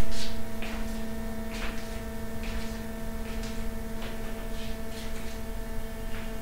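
Steady electrical mains hum with a faint hiss, broken by a few soft, irregular ticks.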